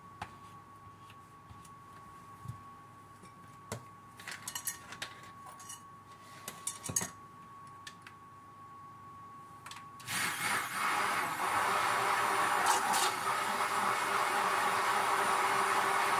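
A few light knocks and taps, then about ten seconds in an electric stick (immersion) blender switches on and runs steadily. It is blending a thick sea moss, honey and black seed mixture to break up its clumps.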